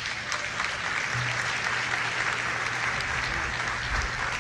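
A large hall audience of delegates applauding, many hands clapping steadily in a dense, even wash.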